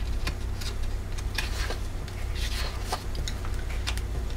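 Pages of a small paper pad being flipped over by hand: a series of short, light papery flicks at irregular intervals, over a low steady hum.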